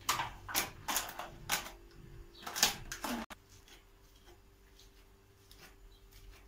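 Utensils clinking against metal bowls and dishes: a run of sharp clicks over the first three seconds, then only faint taps as a spoon stirs crumbled cheese filling in a metal bowl.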